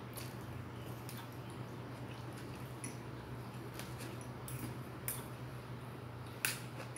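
Metal fork and spoon clicking and scraping in a plastic food container: a scatter of light clicks, the sharpest near the end, over a steady low hum.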